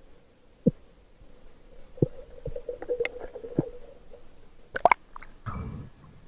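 Muffled underwater sound through a camera housing: scattered sharp clicks and knocks over a faint steady hum, with a short low rumbling noise near the end.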